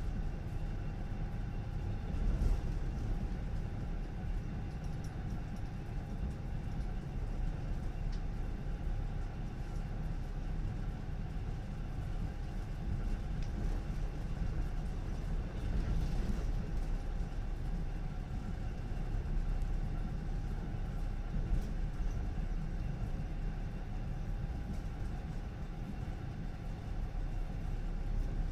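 Electric commuter train running along the track: a steady low rumble with a faint steady hum over it.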